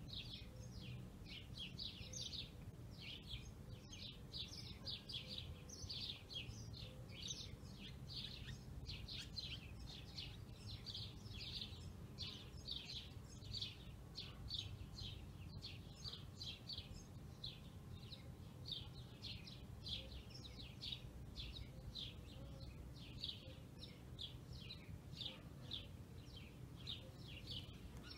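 Quiet, continuous bird chirping: short high chirps two or three a second, over a low steady background hum.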